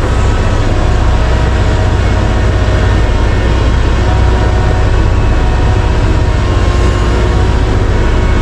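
Komatsu PC1350-11R mining excavator's large diesel engine running steadily, a deep continuous drone with faint steady whines above it.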